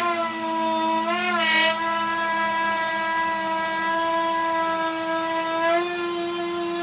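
Electric sander running steadily with a motor whine, its pitch dipping and wobbling briefly about a second in and shifting slightly near the end.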